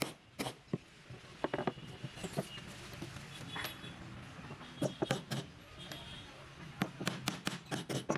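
Hammer driving steel nails into a wooden block: a few strikes in the first couple of seconds, a pause, a couple more, then a quick run of blows near the end.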